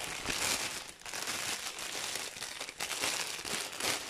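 Packaging crinkling and rustling in uneven bursts as a dress is handled and pulled out of it.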